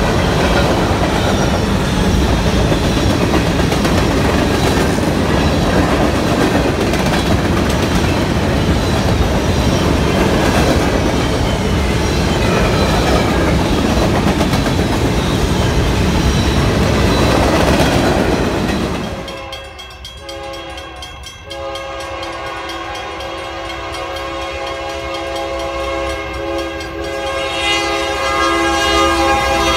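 Freight train's covered hopper cars rolling past close by, wheels rumbling and clacking over the rail joints. About 19 s in, this gives way to an approaching Union Pacific diesel locomotive sounding its air horn in long blasts for a grade crossing, with a short break early in the horn and growing louder near the end.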